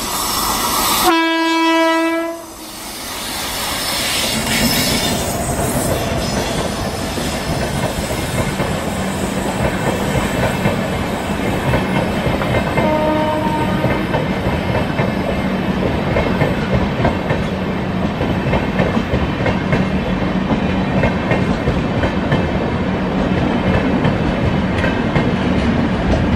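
An Indian Railways WAP7 electric locomotive's horn sounds one blast of about a second and a half. It is followed by the steady rumble and clickety-clack of a long train of AC double-decker coaches passing close by, with a short, fainter horn note about halfway through.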